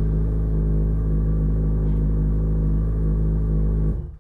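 2012 Yamaha FZ6R's 600 cc inline-four motorcycle engine idling steadily just after start-up, then cut off abruptly about four seconds in.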